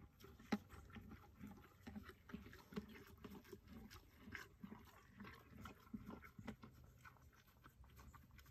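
Foal eating hard feed from a tub: faint, steady chewing, about two chews a second.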